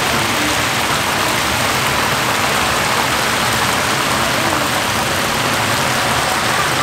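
Hot oil in a deep fryer sizzling steadily as batter-coated mini blue crabs fry.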